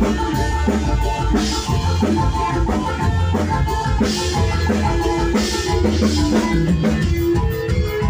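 Dance music with a heavy bass and a driving drum beat, played loud through a large event sound system.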